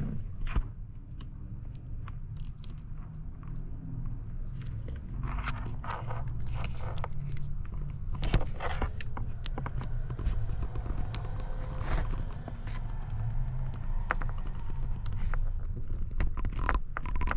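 Irregular scraping and clicking of small plastic parts as a wiring connector is pushed together and worked until it is fully seated.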